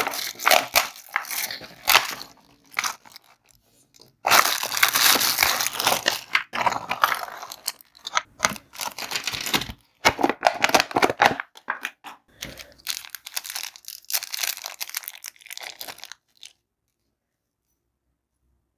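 Plastic candy wrappers being crinkled and torn open by hand, a run of dense crackling and crunching that stops dead about 16 seconds in.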